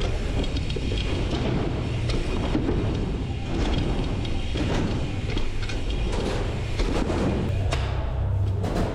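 Continuous rumble of bicycle tyres rolling over a jump line, mixed with wind buffeting a rider-mounted action camera, and a few sharp knocks from the bike through the run.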